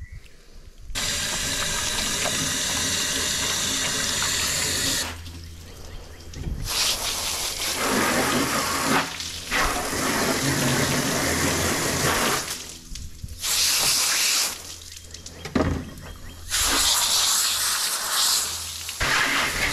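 Garden hose spray nozzle jetting water in several bursts that start and stop, spraying down a plastic folding table and then rinsing cleaned fish held in the hand.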